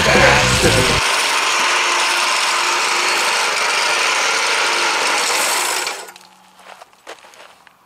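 Legend Force walk-behind string trimmer's 173cc gas engine running, its line thrashing through dirt and gravel in a steady, rattly din. Background rock music ends about a second in, and the machine noise cuts off sharply about six seconds in, leaving a faint low hum and a few clicks.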